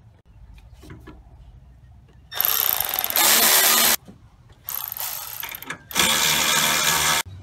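Handheld power tool run in two bursts of about two seconds each, the second louder partway through, tightening fasteners on the radiator.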